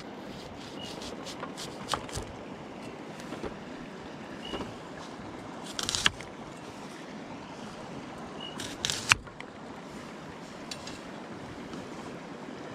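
Steady rush of river water, with a few light clicks and two short crackling rustles about six and nine seconds in, each ending in a sharp tap, as onions are peeled by hand.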